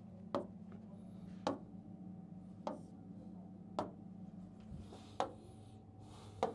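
Stylus tapping on an interactive display screen: about six sharp taps, a second or so apart, over a steady low hum.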